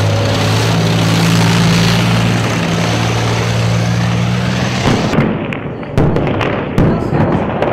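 A BMP-2 infantry fighting vehicle's V6 diesel engine and tracks running steadily as it drives close by. About five seconds in it gives way to a string of sharp shots and bangs at irregular intervals, about five of them, from a gunfight.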